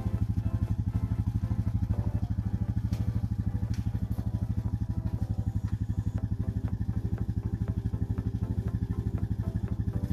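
ATV engine running steadily at idle: a fast, even pulse with no change in speed.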